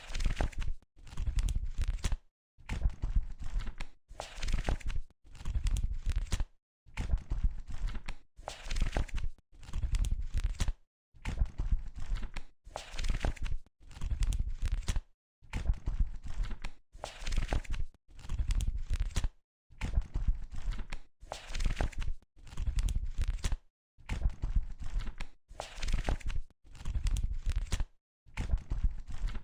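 Book pages being turned one after another: a crackly rustle of paper about every two seconds, each turn lasting about a second and a half, with a short silent gap between turns.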